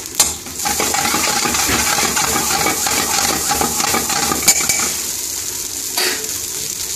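Metal spoon stirring and scraping rice around a frying pan with oil and onions frying, with sharp clinks of the spoon on the pan; the stirring eases off after about five seconds.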